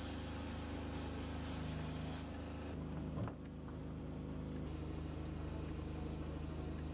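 Plasma cutter hissing as it cuts through the steel hull, stopping about two seconds in, over the steady hum of a diesel generator running. A single light knock follows about a second later.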